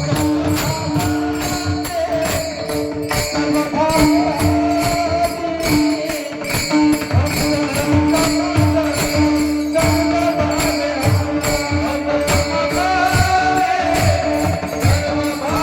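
Devotional kirtan music: a wavering melody over a held drone, with a steady drum beat and small hand cymbals jingling in rhythm.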